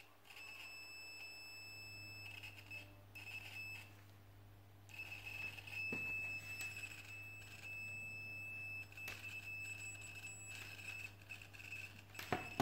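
DT-832 digital multimeter's built-in buzzer sounding a steady high beep that switches on and off as the test leads make and break contact: a couple of beeps of about a second, then a longer beep lasting several seconds. A sharp knock near the end.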